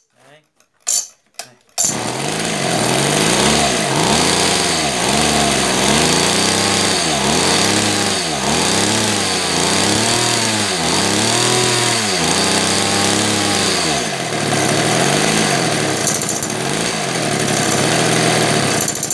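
Kawasaki TF24 two-stroke brushcutter engine starting about two seconds in, then running with its revs rising and falling about once a second as the throttle is worked, before it cuts off near the end. It is running normally on a newly fitted carburetor that replaces one that leaked fuel.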